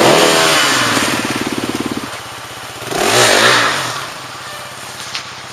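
An engine running with a fast, even pulse, surging louder twice, at the start and about three seconds in, then settling to a lower steady run.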